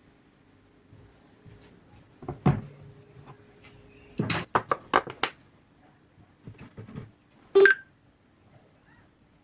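Scattered clicks and taps from a JBL Flip 2 Bluetooth speaker being handled and its buttons pressed, then one short, loud electronic beep from the speaker about three-quarters of the way through.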